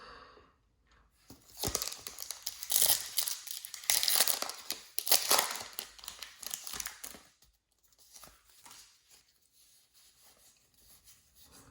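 Foil wrapper of a Pokémon booster pack being torn open and crinkled, in loud rustling bursts over several seconds, then quieter rustling as the cards are handled.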